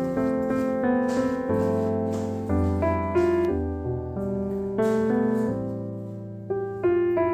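Background music: a mellow piano piece, with new chords struck every second or so and left to ring.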